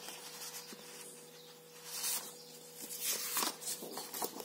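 Sheets of scrapbooking paper rustling and sliding against each other as they are handled and shuffled by hand, with a few small taps; the rustle swells about two seconds in and again near the end.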